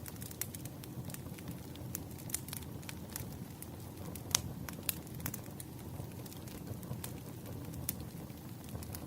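Wood fire crackling: scattered sharp pops and snaps over a low, steady rumble of the flames, with two louder pops about four and a half and five seconds in.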